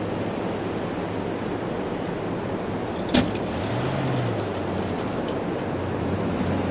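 Vehicle engine idling, rising briefly in pitch about four seconds in as it is revved. There is a sharp click just after three seconds, followed by a second or two of light metallic clinking.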